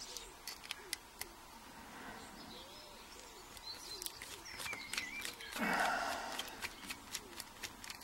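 Small sharp metallic clicks and ticks as a screwdriver works tight screws out of a Mul-T-Lock lock cylinder, with a brief louder scraping rush about two thirds of the way through. Faint bird chirps in the background.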